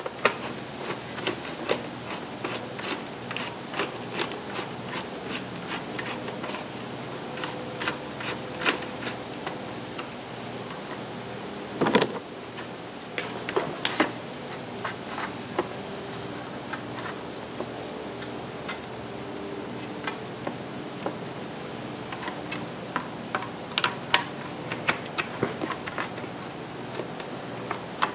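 Small irregular clicks and taps of a hand screwdriver working screws into a plastic licence-plate frame holding a backup camera, with a louder clatter about twelve seconds in and again near the end. A faint steady hum runs underneath.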